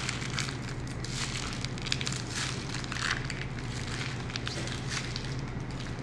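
Plastic piping bag full of ganache crinkling and crackling in the hands as it is twisted shut and squeezed down, with a steady low hum underneath.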